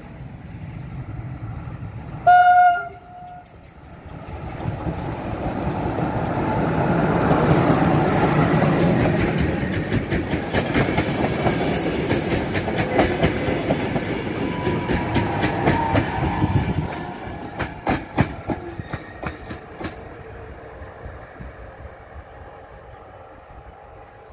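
Train horn gives one short blast about two seconds in, then a CFR passenger train passes close by: a rising rumble of the locomotive and coaches, with rapid rhythmic clicking of wheels over rail joints. The rumble drops off sharply after about seventeen seconds, and the clicking trails away soon after.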